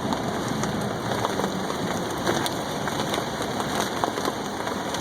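Heavy rain beating steadily on a car, with many scattered sharper drop hits.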